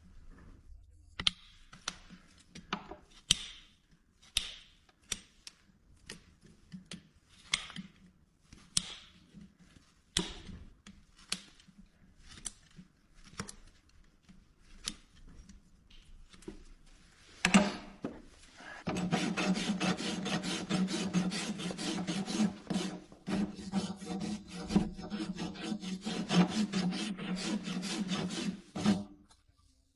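A farrier's rasp being drawn across a horse's hoof wall. At first there are separate strokes about one a second. From about two-thirds of the way in it switches to a fast, continuous run of rasping that stops just before the end.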